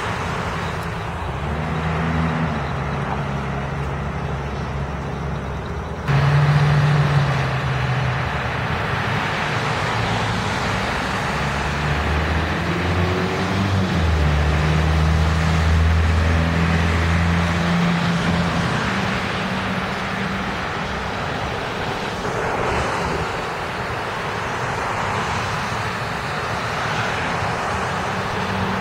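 Street traffic with buses and cars driving past: a steady rumble of engines and tyres. A bus's deeper engine hum swells through the middle as it comes by. The sound steps up abruptly about six seconds in.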